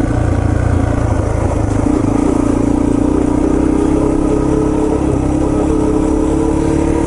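Yamaha TT-R230 trail bike's single-cylinder four-stroke engine running at a fairly steady low speed, its pitch shifting slightly a couple of times.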